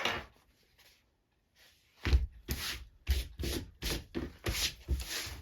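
Quick, even rubbing strokes, about three a second, starting about two seconds in: a hand brushing dust off the pigskin leather.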